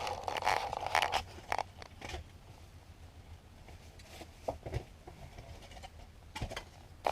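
A metal detector's warbling signal tone sounds for about the first second, then cuts off. Scattered crunches, scrapes and a few knocks follow, from footsteps and digging on rubble.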